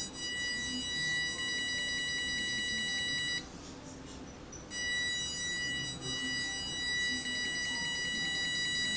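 Electronic buzzer on an Arduino breadboard prototype sounding a steady high-pitched tone. It cuts off about three and a half seconds in and starts again about a second later.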